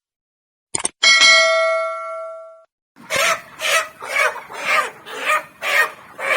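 A short click, then a single bell chime that rings out and fades over about a second and a half. After it, from about halfway in, comes a run of short calls about two a second, typical of chickens clucking.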